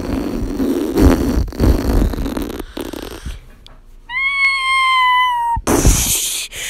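Vocal sound effects made by mouth: a long, rough explosion noise, then one drawn-out high squeal about four seconds in that dips at its end, and a short hiss near the end.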